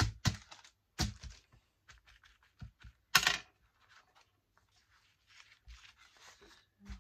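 Paper journal pages being handled: a few light knocks in the first second, a loud sharp crackle of paper about three seconds in, then soft rustling as the pages are turned and smoothed by hand.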